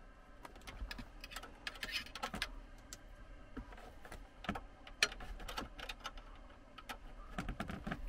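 Irregular small clicks, taps and rattles of hard plastic dashboard trim and wiring being handled by hand inside a car's open stereo bay.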